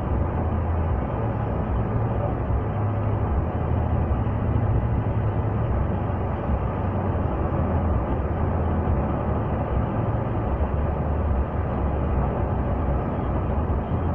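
Steady road and engine noise inside a moving car's cabin: a deep, even rumble under a hiss.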